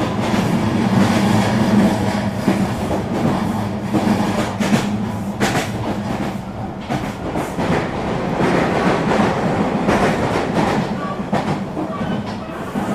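Eurobahn regional train running along the track: a steady running rumble with a hum, broken by irregular clicks and knocks from the wheels passing over the rails.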